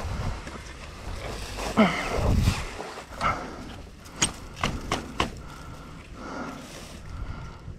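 A rider grunting and breathing hard with effort while heaving a fallen KTM 450 enduro motorcycle back upright, the loudest grunt about two seconds in. It is followed by a few sharp clicks and knocks from the bike and gear a few seconds later.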